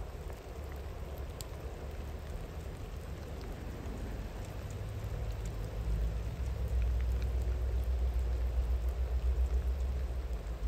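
Steady rain hiss with scattered drops ticking, under a low rumble from a distant train that grows louder about halfway through.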